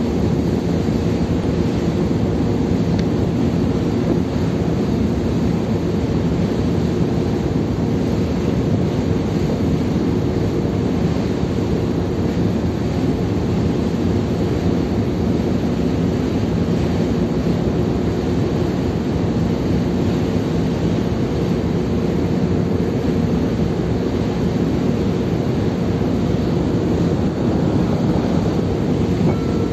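Steady low rumble of a car ferry underway, its engines humming under the rush of the wake churning along the hull, with wind buffeting the microphone.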